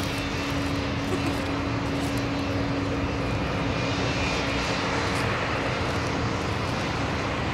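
Aircraft engines running, a continuous rumble and hiss with a steady low hum that fades out about five seconds in.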